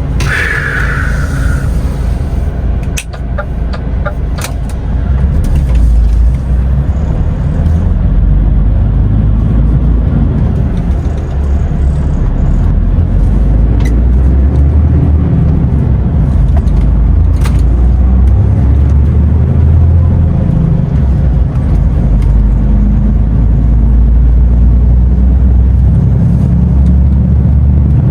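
DAF XF truck's diesel engine heard from the driver's cab while driving, a loud low rumble whose pitch rises and falls with the revs, louder from about six seconds in. A few sharp clicks in the first seconds.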